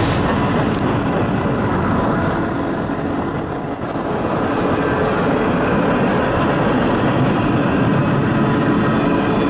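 Mixed freight train of tank cars and covered hoppers rolling past, a steady noise of steel wheels on rail.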